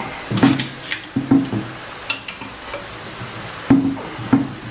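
A wrench twisting a corroded sheet-steel coolant pipe out of the Toyota 2C diesel block, where it is fixed with solder rather than a thread. Metal scrapes and creaks in several short bursts, with sharp clicks in between.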